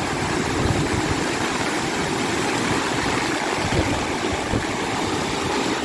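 Muddy floodwater of a swollen, overflowing river rushing loudly and steadily.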